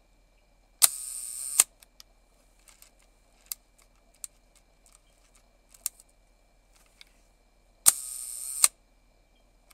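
Contax IIa rangefinder shutter firing twice at a slow speed. Each release opens with a sharp click, and the slow-speed governor (escapement) buzzes for about three-quarters of a second before the shutter closes with a second click. A few faint mechanical clicks come between the two releases.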